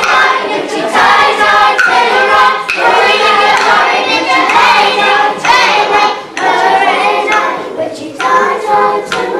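A group of primary school children singing together as a choir, a lively repeated chant-like song.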